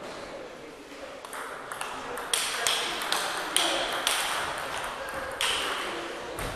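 Table tennis rally: the ball clicking sharply off the rackets and the table in quick alternation, about two to three hits a second, for around four seconds before the point ends.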